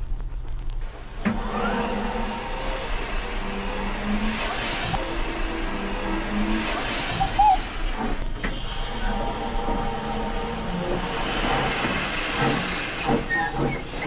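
Digital steam sound effects from a Dapol B4 tank engine model: steam hissing and locomotive running sounds as it shunts, starting about a second in.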